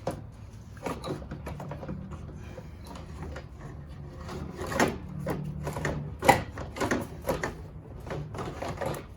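Plastic radiator cooling fan shroud knocking and clattering against the radiator and body as it is tilted and worked down into place, with the loudest knock about six seconds in.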